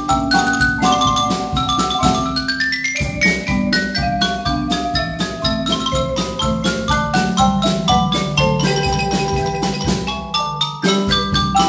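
Mallet percussion ensemble of four players on keyboard percussion instruments, struck with yarn mallets in fast, even runs of ringing notes, with a quick rising run about two to three seconds in.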